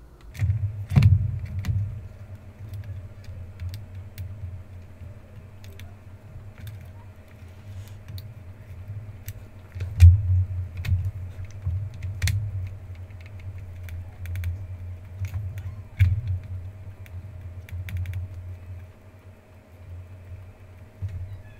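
Hands handling an opened laptop's battery and plastic chassis: scattered light clicks of plastic and connectors, with heavier knocks against the table about a second in, around ten seconds, and again a few seconds later. A faint steady whine runs underneath.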